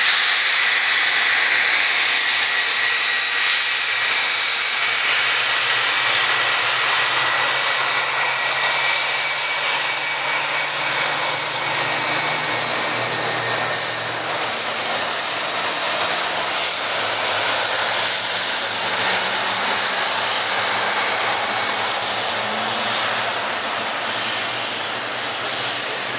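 Boeing 777-300ER's GE90 turbofan engines at taxi power, a loud, steady jet rush with a high whine through the first ten seconds or so, fading slowly as the airliner moves away.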